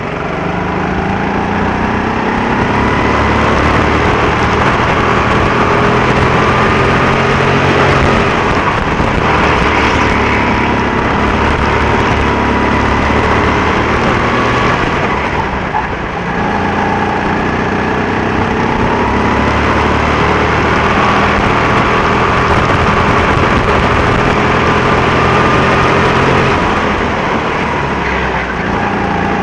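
Go-kart engine running hard, its pitch climbing for several seconds at a time, then falling back as the throttle eases, several times over.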